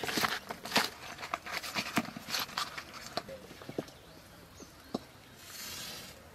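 Brinjal slices knocking against an aluminium bowl as they are turned by hand in salt and turmeric: a quick series of short taps and clicks. About five seconds in there is a single knock, and near the end a match is struck and flares with a brief hiss.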